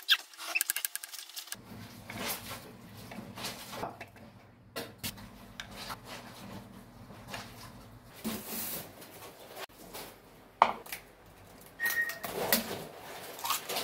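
Kitchen food-prep sounds: scattered clicks and knocks of a knife, utensils and dishes on a wooden cutting board and stone countertop, over a low steady hum. An egg is cracked near the end.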